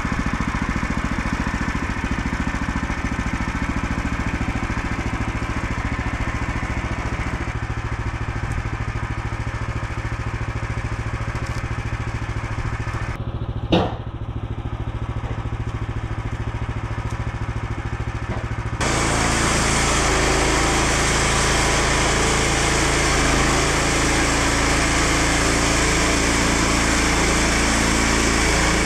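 A small engine runs steadily. There is a sharp click about 14 seconds in. About 19 seconds in, the sound jumps abruptly to a louder, higher, busier engine run and stays there.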